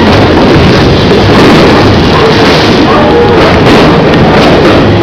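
Fireworks going off in quick succession, a dense, continuous run of bangs and crackling, very loud throughout.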